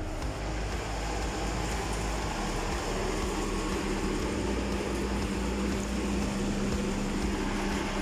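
Inline duct exhaust fan running at its full, high speed: a steady rush of air with a low hum that comes up about three seconds in. It runs very loud, too fast for its use.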